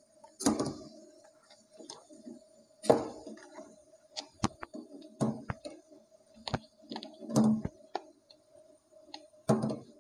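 Eggs being lowered one at a time into a metal pot of boiling water, making a series of irregular clicks and knocks as the shells touch the pot and each other, over faint steady hissing.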